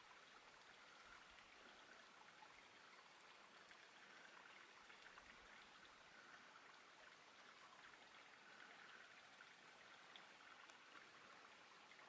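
Faint, steady rush of a small waterfall falling into its plunge pool.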